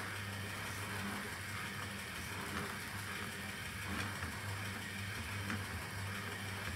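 Electric destination roll sign of a Seibu 2000 series train winding its film: a steady low motor hum that breaks off briefly a few times, with faint light clicks.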